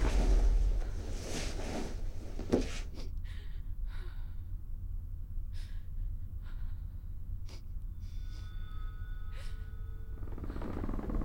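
A young woman gasping and breathing hard, with heavy panting for the first few seconds that settles into quieter, separate breaths. A steady low rumble runs underneath.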